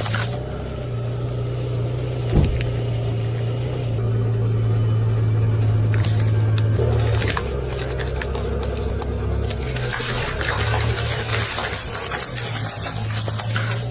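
Car engine running slowly as a car's wheel rolls over objects, with a thud about two seconds in and scattered crackles and clicks.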